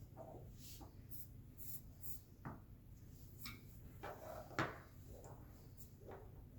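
A few faint, scattered clicks and light knocks from handling the soldering tools and the small LCD board at the work bench. The sharpest knock comes about four and a half seconds in, over a low steady hum.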